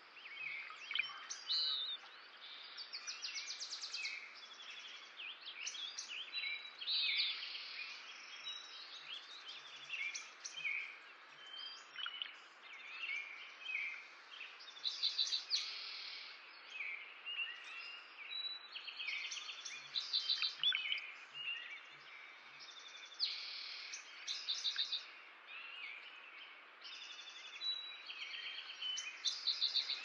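Several small songbirds chirping and singing: many short calls and quick trills following one another without a break, over a faint steady outdoor hiss.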